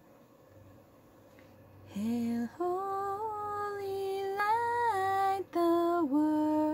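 A woman singing a hymn solo and unaccompanied, with no instruments. She comes in about two seconds in with slow, held notes that step up and down in pitch.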